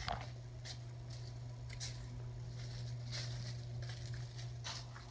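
Footsteps on a patio strewn with dry fallen leaves: about six short, soft crunches spread unevenly, over a steady low hum.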